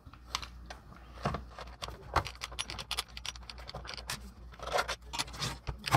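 Irregular small clicks and scrapes as a hex key works the bolts of a portable power station's plastic case and hands handle the case.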